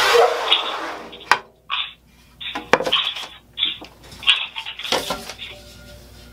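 An aluminium scoop coater's edge scrapes briefly against the emulsion-coated screen mesh. Then come scattered light metallic clinks and knocks as the coater and the screen frame are handled and set down.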